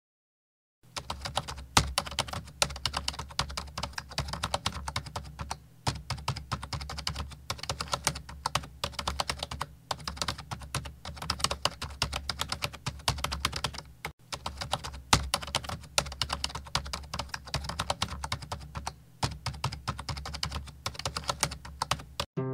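Rapid, continuous typing on a computer keyboard, dense key clicks with a brief pause about two-thirds of the way through, stopping just before the end.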